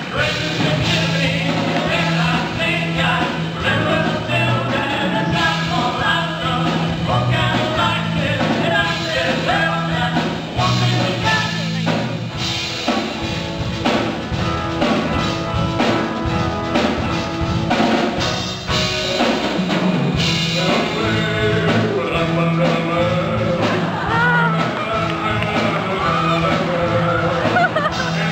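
A band playing a song with a lead singer over a steady drum beat and bass line.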